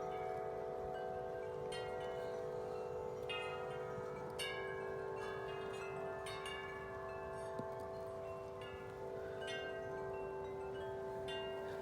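Wind chimes ringing in the wind: irregular strikes of several tubes, a fresh strike every second or so, over long lingering tones.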